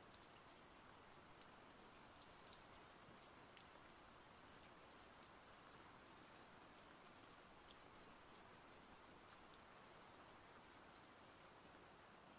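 Faint steady rain, with scattered drops ticking throughout.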